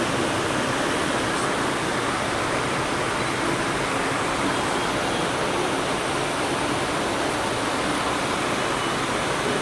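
Steady, even rushing hiss of room noise in a large hall, with no distinct events.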